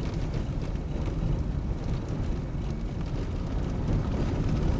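Cabin noise inside a 2001 GMC Yukon driving on a dirt road: a steady low rumble of engine and tyres on the unpaved surface.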